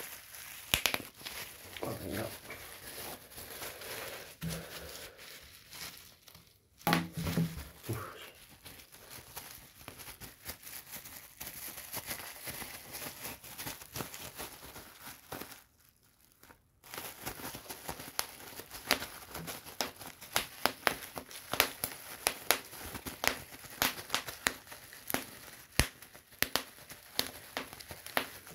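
Plastic bubble wrap being squeezed and popped by hand: crinkling plastic with many sharp pops one after another, coming thicker in the second half, with a short pause about halfway through.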